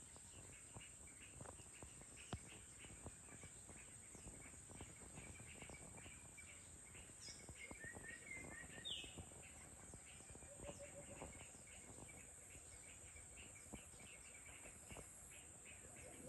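Faint evening outdoor ambience: small birds chirping over and over, with a few clearer calls about seven to nine seconds in, over a steady high hiss.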